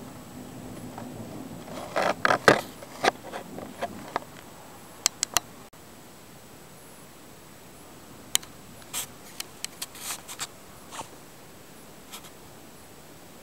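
A run of sharp clicks and scrapes close to the microphone, thickest about two seconds in, then scattered single clicks. A low rumbling noise fades out in the first few seconds.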